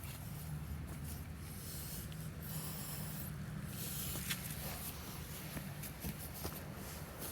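Hands digging and scraping through loose garden soil around potato plants, soft rustling and scratching with a few faint clicks, over a steady low rumble.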